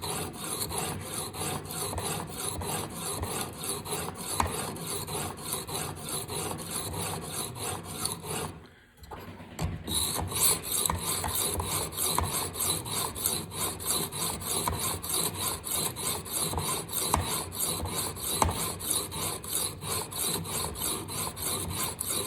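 Coarse abrasive sharpening stone on a TSPROF guided-rod knife sharpener scraping along a steel knife edge in quick, even strokes, knocking off the burr. The strokes stop briefly about nine seconds in, then carry on.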